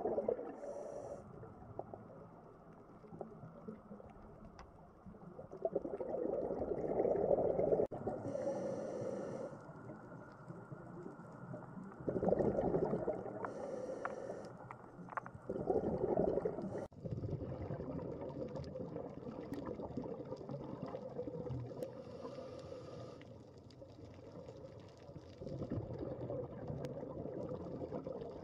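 Scuba diver breathing through a regulator underwater: bursts of exhaled bubbles rumbling for a couple of seconds at a time, with a higher hiss from the regulator on the inhales in between.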